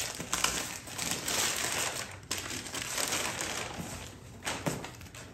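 Christmas wrapping paper crinkling and rustling as a gift is unwrapped, a dense run over the first few seconds that then fades, with a couple of sharp clicks near the end.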